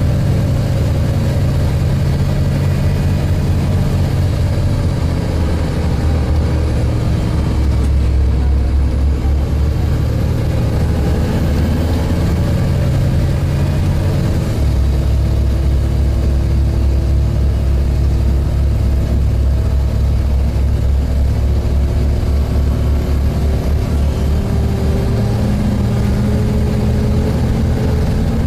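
A Volvo B7TL bus's six-cylinder diesel engine running under way, heard from inside the bus, with a deep steady hum. Its pitch drifts up and down as the bus drives, shifting at about the middle.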